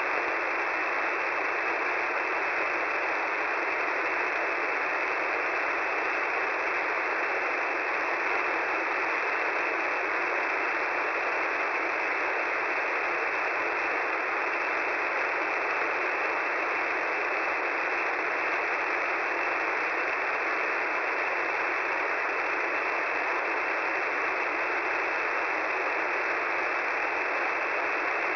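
Shortwave radio receiver tuned to 10755 kHz giving a steady, even hiss of band noise through a narrow voice-width filter, with no audible signal or tones on the channel.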